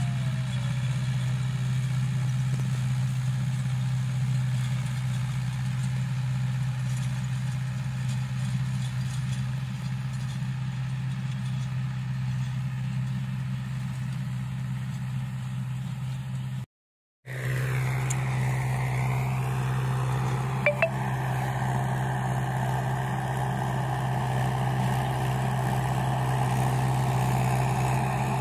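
Mahindra 575 DI tractor's four-cylinder diesel engine running steadily under load while pulling a rotavator through a field. The sound cuts out for about half a second some two-thirds of the way through, then the engine resumes at the same steady pitch.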